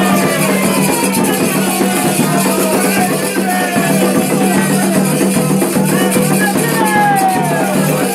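Candomblé ritual music for Xangô: steady hand drumming and shaken rattles, with voices singing descending phrases over them.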